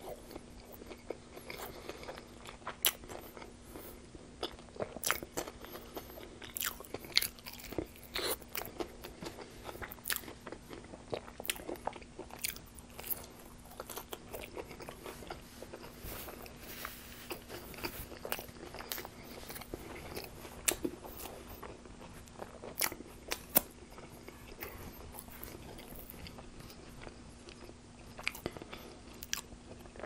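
Close-miked chewing of a fried-chicken twister wrap with lettuce and tomato in a tortilla: wet mouth sounds broken by irregular sharp crunches and crackles.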